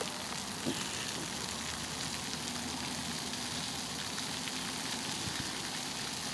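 Steady, even hiss of outdoor background noise, with one brief faint knock less than a second in.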